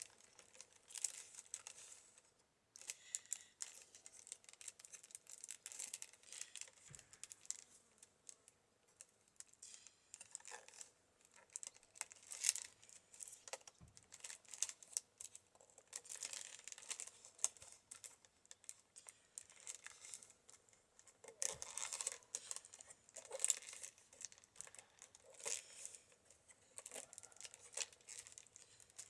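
A strip of pine root being woven through the stakes of a basket: quiet, irregular dry rustling and crackling with many small clicks.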